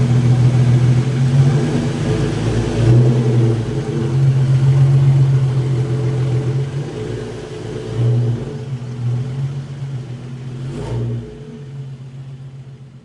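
Hyundai Genesis Coupe 3.8's V6 engine running while the car is driven slowly on the driveway, its note swelling several times under light throttle before fading out near the end.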